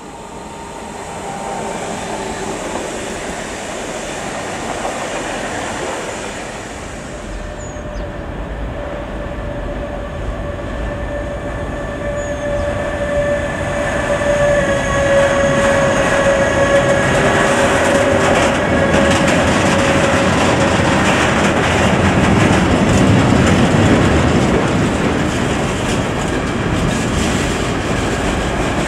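Electric freight train, a DB Class 185 locomotive hauling a string of tank wagons, passing close by over a steel bridge and growing louder, the wheels clattering over rail joints. A drawn-out high whine runs for a few seconds midway.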